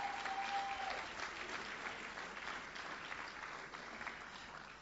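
Congregation applauding, the clapping slowly dying away.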